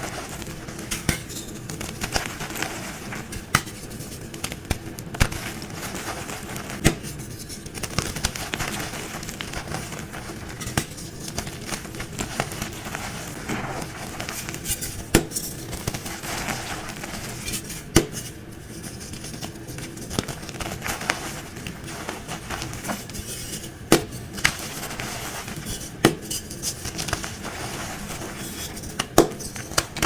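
Dyed gym chalk chunks and blocks crunching as they are crushed and crumbled, a dense continuous crackle broken by sharp snaps every few seconds.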